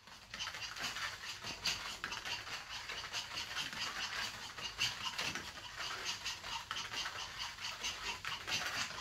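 Quick, irregular pattering and clicking of small dogs' paws and claws on a foam play mat as two dogs scamper and play.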